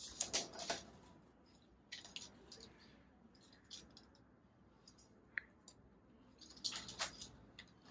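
Faint scattered clicks and rustles over a quiet background, in small clusters at the start, around two seconds in, and again near the end.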